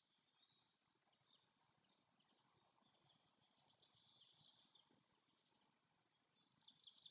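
Faint forest birdsong: quick, falling high chirps in two bouts, a short one about two seconds in and a longer, busier one near the end, over a faint steady hiss.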